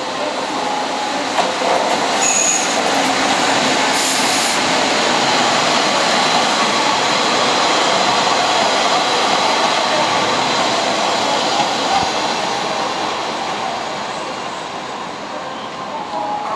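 EF65 electric locomotive hauling two KiHa 47 diesel railcars past on the rails: steady wheel and rail noise with thin wheel squeals, swelling about a second and a half in and easing off near the end as the train goes by.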